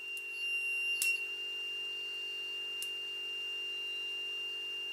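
A 2000 W power inverter's alarm buzzer sounding one steady high beep while its input capacitors charge from a car battery, before the load comes on. A low steady hum sits underneath, with a couple of faint clicks early on.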